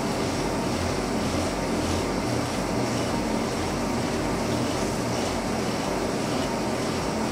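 Lucas 41 horizontal boring mill running steadily, a constant machine noise with a low hum underneath.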